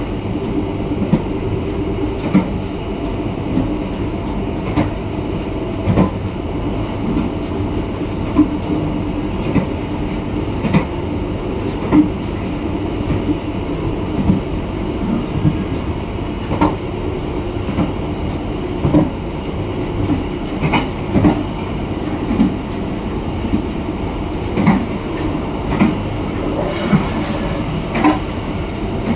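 Malioboro Ekspres passenger train running along the track at speed: a steady rolling rumble of wheels on rail, with sharp clacks from the rail joints about once every second or so.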